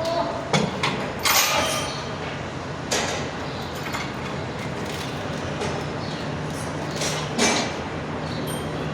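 Metal tools and parts being handled in a workshop: a few quick clinks, then several scrapes and rattles over steady background noise with a low hum.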